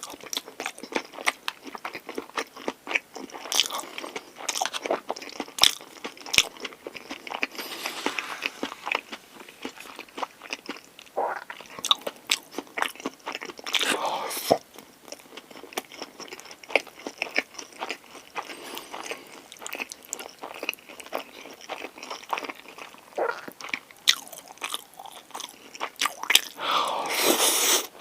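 Close-miked eating of a Korean pork-galbi convenience-store lunch box: chewing and biting, with many irregular sharp clicks and mouth sounds and a few longer, louder bites.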